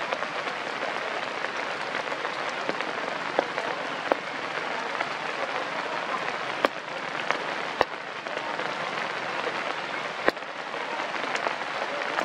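Rainwater falling on forest leaves: a steady hiss of drops with a few louder single drops landing close by.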